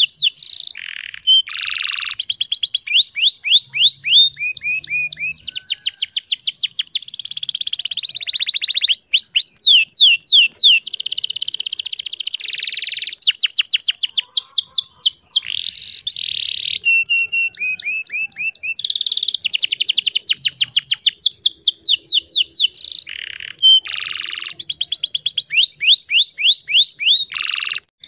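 Canary singing a long run of rapid trills: each phrase is a fast repeat of short sweeping notes, switching to a new pitch and speed every second or two, with brief gaps between phrases.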